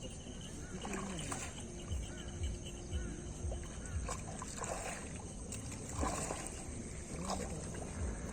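Water sloshing and splashing in a river, with a few dull low thumps scattered through.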